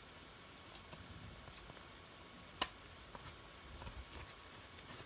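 Faint rustling and small ticks of paper picture pieces being handled and stuck on, with one sharp click about two and a half seconds in.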